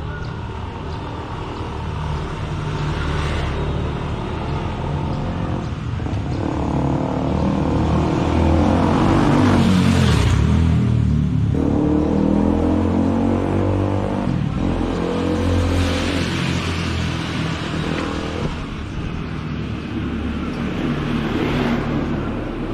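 Motor vehicles passing close by on a street, the engine sound building to its loudest about ten seconds in as one goes past with its pitch shifting, then further vehicles passing near the middle and near the end.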